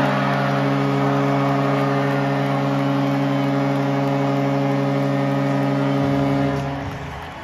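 Arena goal horn blowing one long, steady, low blast after a home-team goal, then cutting off near the end.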